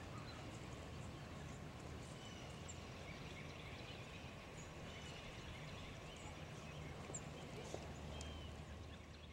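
Faint steady outdoor background noise with a low hum and scattered short, high chirps.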